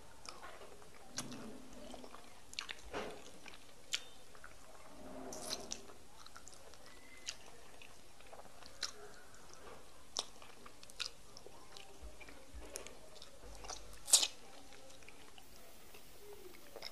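Close-miked eating sounds from a man finishing egusi soup and fufu by hand: soft chewing with irregular wet mouth clicks and smacks as he licks his fingers. The loudest smack comes about fourteen seconds in.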